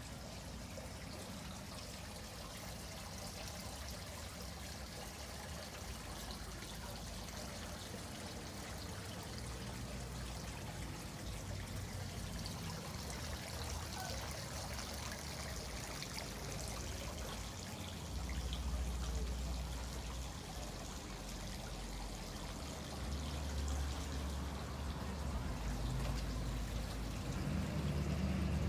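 Running water trickling and pouring steadily, with a low rumble that swells about two-thirds of the way through and again near the end.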